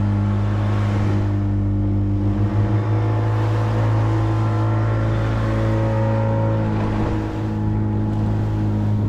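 Engine of a small open fishing boat running at a steady cruising speed, a constant low hum, with water rushing along the hull.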